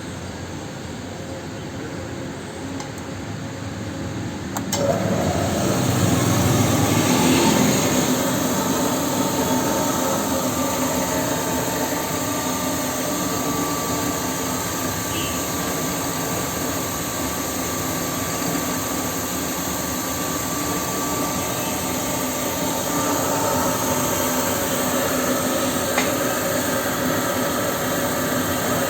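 Electric carbide die polisher grinder machine running steadily. About five seconds in there is a click, it grows louder and a steady whine joins, holding level from then on.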